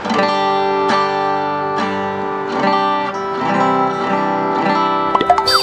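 Acoustic guitar strummed in slow chords, a new chord about once a second, with a few sharp clicks near the end.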